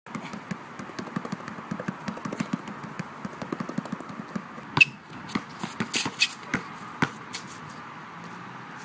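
Basketball dribbled hard and fast, bouncing about four times a second. A single loud bang comes about five seconds in, followed by a few scattered, irregular knocks.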